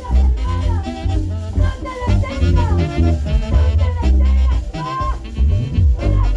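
Upbeat Latin-style music: a saxophone melody with sliding notes over a heavy bass line and busy percussion.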